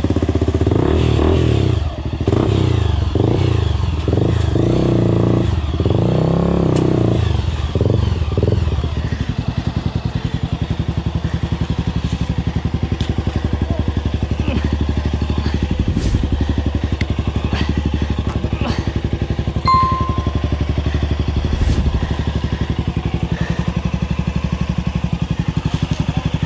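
Honda CRF 250F's single-cylinder four-stroke engine revved in uneven surges for the first several seconds while the bike is stuck in a muddy stream. It then settles to a steady low idle, with a few sharp clicks in the second half.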